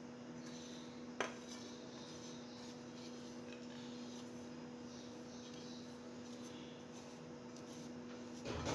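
A steady low hum with a single sharp clink of a kitchen utensil about a second in, then louder handling noise near the end.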